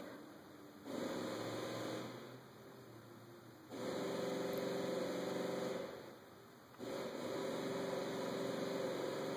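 Ford's electric fuel pump humming, coming on three times with short pauses between as the scan tool cycles it to build fuel rail pressure for an injector flow test.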